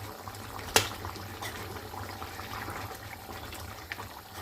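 Chicken stew simmering in the pan, a soft steady bubbling and popping, with one sharp click about three-quarters of a second in.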